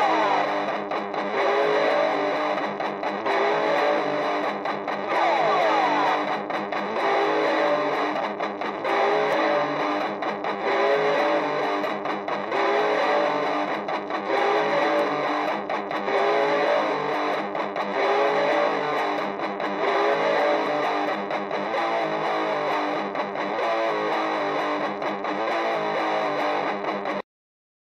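Distorted electric guitar playing a dense, noisy experimental rock figure, every sound made on the guitar through effects. The figure repeats about every two seconds and cuts off abruptly near the end.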